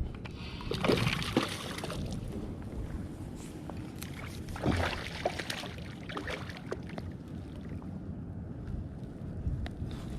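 Water sloshing around a small fishing boat, with wind on the microphone and a few brief louder bursts about a second in and near the middle.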